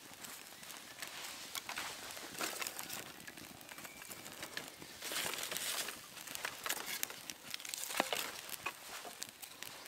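Fire of dry twigs and sticks crackling and popping as it burns, with a denser hissing stretch about five seconds in and a sharp loud pop about eight seconds in.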